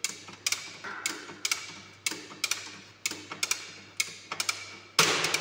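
Spring-operated circuit breaker mechanism being charged by hand: the ratchet of the charging lever clicks in short double clicks about twice a second as the closing spring is wound. A louder clank near the end, as the spring reaches full charge.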